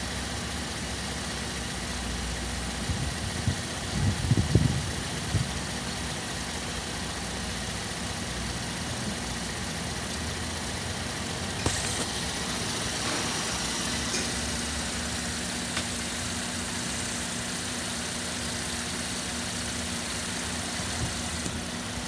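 Holden Commodore 3.0-litre V6 idling steadily. A brief low rumble sounds about four seconds in and a click near the middle, and a steady low hum joins shortly after.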